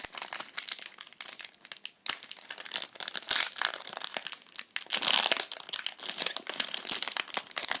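Foil booster-pack wrapper crinkling and tearing as it is opened by hand, a dense crackle of small clicks, loudest about five seconds in.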